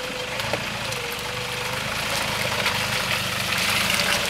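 Toyota Hilux engine running at low revs as the ute crawls down a muddy, rutted track, with scattered crackles over the hum. It grows gradually louder as the vehicle comes closer.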